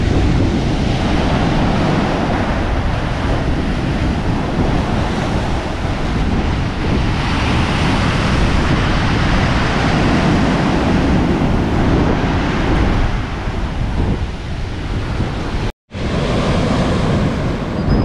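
Ocean surf breaking and washing up the beach, with strong wind buffeting the microphone. The sound drops out for a split second near the end.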